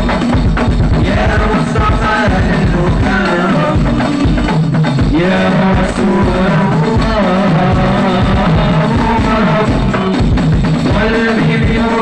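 Hadrah ensemble performing a sholawat song: a male voice sings a wavering Arabic melody through a PA system over hand-struck frame drums (rebana) and a larger floor drum beating a dense, driving rhythm.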